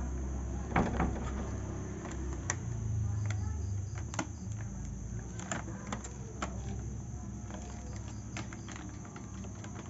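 Scattered clicks and crinkles of a foil snack packet being handled, over a low steady hum.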